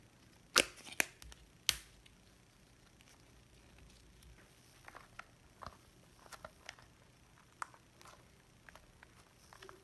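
Hands working Play-Doh and its small plastic pots and tools: three sharp plastic clicks within the first two seconds, then soft scattered taps and ticks.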